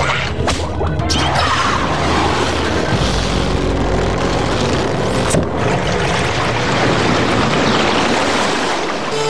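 Cartoon sound effect of water rushing and gushing, loud and steady, over background music, with a few sharp hits in the first second.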